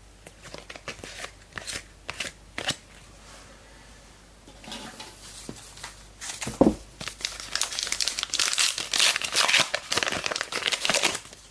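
A trading card pack's wrapper being torn open and crinkled. It starts with a few light clicks and taps as cards are handled, and the crinkling grows loud and dense over the last four seconds.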